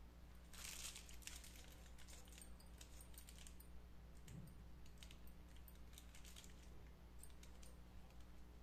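Faint crinkling and clicking of a plastic piping bag being squeezed as muffin batter is piped into paper cups, with the strongest crackle about half a second in.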